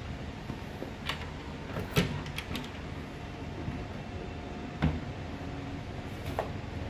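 Sharp clicks and knocks of a cable being plugged into equipment inside a wooden cabinet, then a heavier thump about five seconds in as the cabinet door is pushed shut, over a steady low hum.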